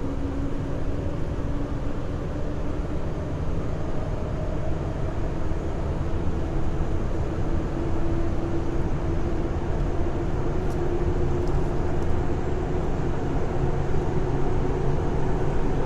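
Inside a Nagoya Municipal Subway 3000 series car running between stations: a steady rumble of running noise with a low hum that rises slowly in pitch, over the whir of the car's Mitsubishi ceiling ventilation fans.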